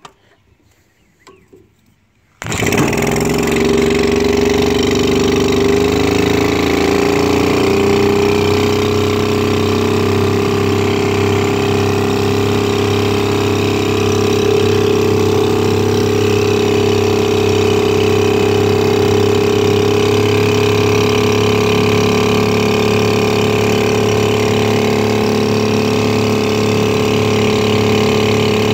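1926 Johnson A-25 outboard motor, a 2.5-horsepower opposed-twin two-stroke, catches suddenly about two seconds in after a few faint handling sounds, revs up briefly and then runs steadily while driving the boat.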